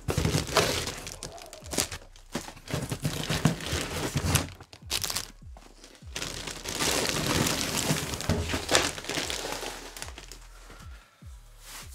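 Clear plastic packaging bags crinkling and rustling as wrapped items are handled and pulled out of a cardboard box, with scattered short knocks and clicks.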